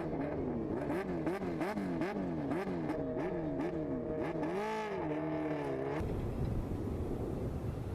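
High-revving racing engine revved up and dropped back over and over, about two rises a second, then held at a steadier pitch. About six seconds in it cuts abruptly to a steady rushing noise.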